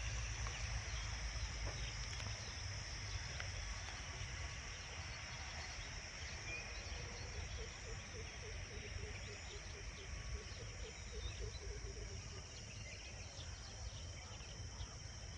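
Rural field ambience: a steady high-pitched chirring of insects over a low rumble, with a faint run of short repeated bird calls midway through.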